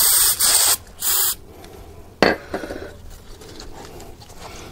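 Aerosol brake cleaner hissing out of the can in short bursts into the guide-pin bore of a brake caliper bracket, stopping a little over a second in. A single sharp click follows about two seconds in.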